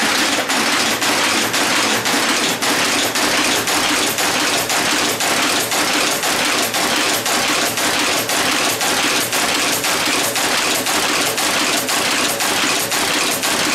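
Monotype-style composition caster running, casting metal type under Raspberry Pi control: an even mechanical clatter with a sharp click at about three strokes a second.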